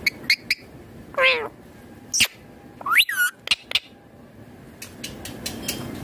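Indian ringneck parakeet calling: two short chirps at the start, a falling call about a second in, and a call that rises and then drops at about three seconds. Sharp clicks come in between and near the end.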